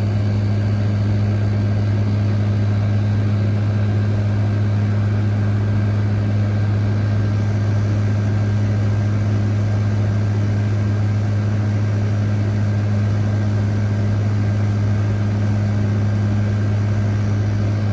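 General Electric 5,000 BTU window air conditioner running on high cool: a steady low hum under a constant rush of fan air.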